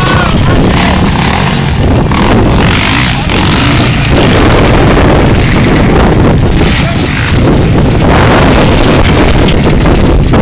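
Off-road dirt-bike engine revving as the bike rides up a dirt track and passes close by, under heavy wind buffeting on the microphone.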